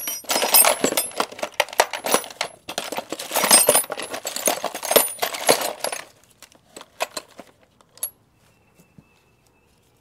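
Metal sockets clinking and clattering against each other as someone rummages through a socket set, for about six seconds, then a few separate clicks.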